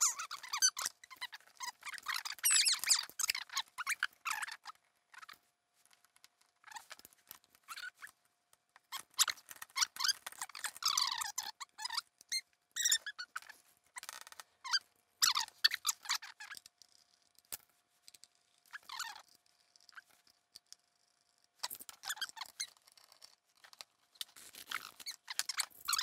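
Irregular squeaks, scrapes and clicks from a Roland TR-606 drum machine's case and panel being handled and pressed back together, with short quiet pauses between bursts.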